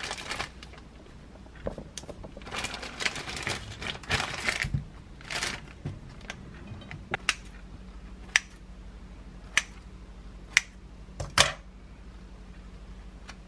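Plastic bread bag crinkling as buns are pulled out and handled, then about six separate sharp clicks over the following seconds. A low steady hum runs underneath.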